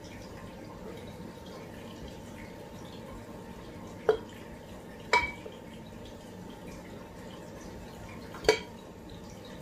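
A spoon tapping three times against a bowl while flour is spooned out, each tap sharp with a brief ring; the first two come about a second apart, the third a few seconds later.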